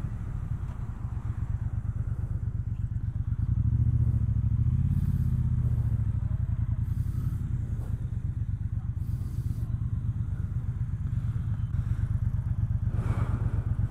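2018 Triumph Bonneville Speedmaster's 1200 cc parallel-twin engine running at low revs with a steady pulsing exhaust. The revs rise briefly about four seconds in, then drop back as the bike rolls slowly.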